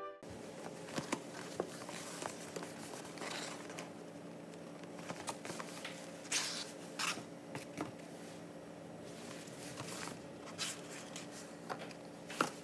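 Cardboard hot dog boxes being handled and opened on a countertop: scattered light taps, scrapes and paper rustles, with a faint steady hum behind.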